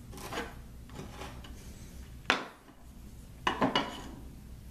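Hand chisel paring and scraping waste wood out of a mortise: a few short scrapes, a sharp click a little past two seconds in, and a quick cluster of scrapes near the end.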